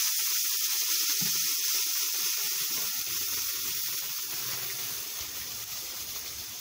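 Red guajillo chile sauce sizzling and spattering in a hot, lightly oiled frying pan. The hiss is loudest at the start and slowly dies down.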